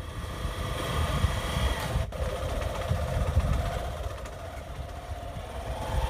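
Wind buffeting the microphone outdoors, an uneven low rumble that rises and falls.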